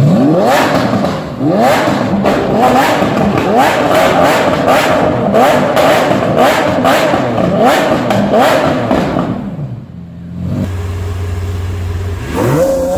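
Lamborghini Aventador SV's V12 revved over and over in quick rising blips, with crackles between them, for about nine seconds. After a cut, another Aventador V12 idles steadily and is revved once near the end.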